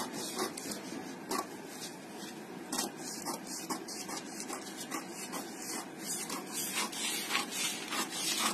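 Scissors cutting paper: a run of crisp snips with paper rustling. The snips are spaced out at first and come closer together in the second half.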